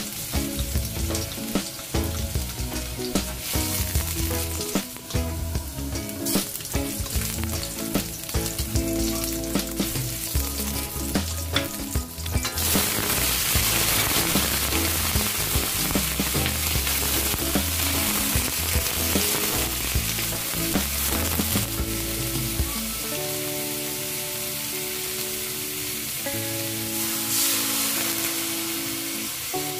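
Garlic, ginger and shrimp sizzling in hot oil in a stainless steel wok, with a spatula scraping and tapping against the pan. The sizzle gets much louder about twelve seconds in, once the shrimp are in the wok. Background music plays throughout.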